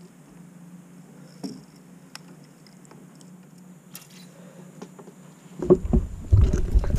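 Faint clicks and small ticks of line and gear handling, then about five and a half seconds in a burst of heavy low thumps and knocks against the kayak as the hooked snapper is swung aboard.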